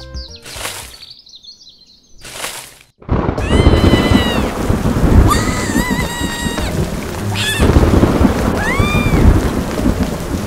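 Heavy rain with thunder starts suddenly about three seconds in, with several high rising-and-falling chirps over it. Before that there are two brief noises.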